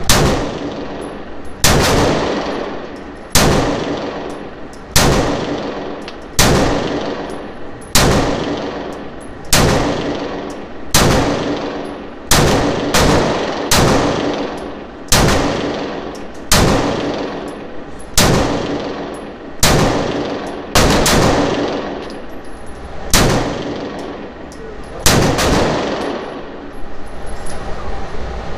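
A 9mm Glock 19 pistol fired slowly and steadily, about one shot every second and a half, some seventeen shots in all. Each shot rings out into the echo of an indoor shooting range.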